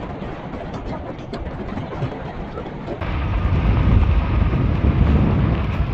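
Wind rushing over a helmet-mounted mic and fat tyres rolling on a dirt road as an e-bike is ridden along. About halfway through, the noise jumps abruptly louder and deeper.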